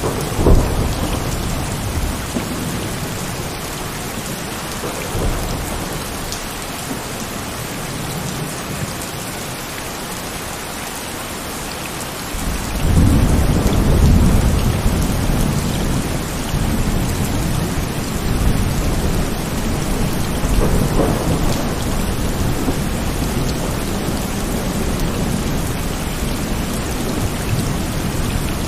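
Heavy rain falling steadily, with thunder: a sharp clap just after the start whose rumble dies away over several seconds, then a second long, low rumble of thunder rising about halfway through and rolling on to the end.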